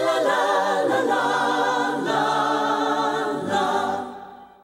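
Intro jingle of a choir singing held, wavering notes, fading out near the end.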